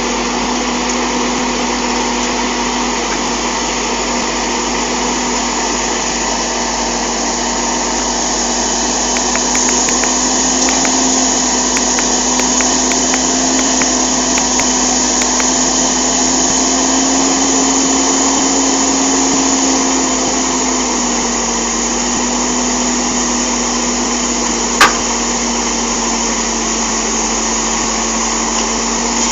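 Heavy semi tanker truck's diesel engine running at high revs under load while bogged in deep mud, its pitch rising a little in the middle and easing back about two-thirds through. A single sharp click comes near the end.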